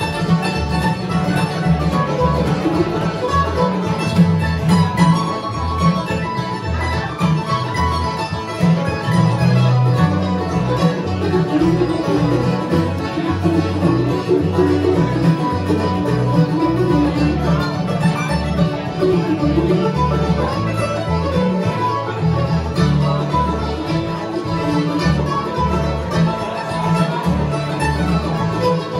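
Live acoustic bluegrass band playing an instrumental tune: mandolin, acoustic guitar, banjo, upright bass and piano accordion together.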